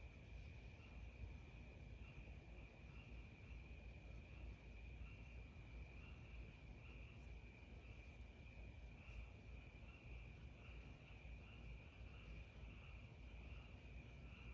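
Faint night-time cricket chirping: a steady high trill that pulses about twice a second, over a low rumble.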